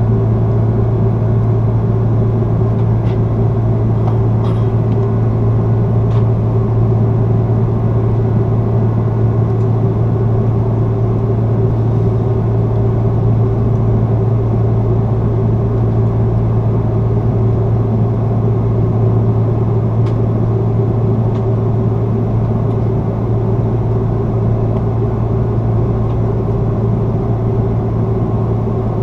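Steady cabin drone of an Airbus A330-300 climbing out, heard from a window seat: the Rolls-Royce Trent 700 engines and rushing airflow make a constant low hum, with a few faint clicks from the cabin.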